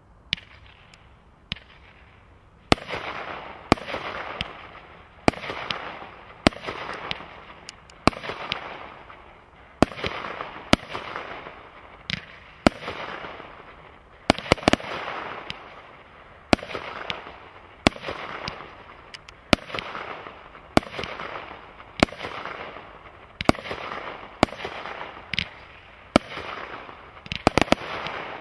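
Brothers Pyrotechnics Fire One single-ignition firework cake firing: a couple of small pops, then from about three seconds in a sharp report every one to two seconds, each followed by a fading hiss as the shot climbs and bursts. A quick volley of bangs comes near the end.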